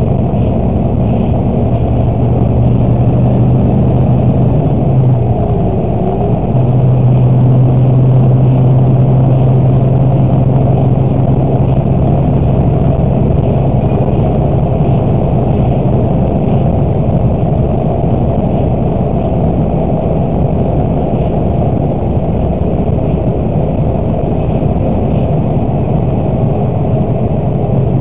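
Bus engine running steadily with road noise, heard from inside the cab while driving at highway speed. The low engine hum dips for a second or so about five seconds in, then comes back.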